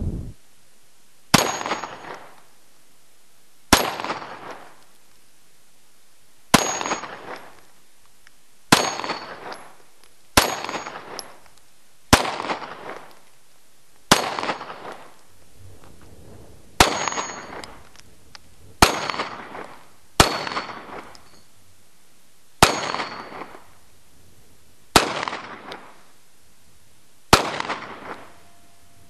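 Centre-fire handgun firing thirteen single shots, spaced roughly two seconds apart, at an Impact-45 rolling steel target; each report comes with a short metallic ring from the hit steel plate that fades within about a second.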